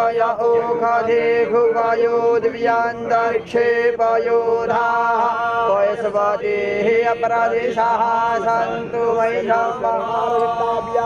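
A man chanting Sanskrit worship mantras for the puja, holding to one steady reciting pitch with brief breaks for breath.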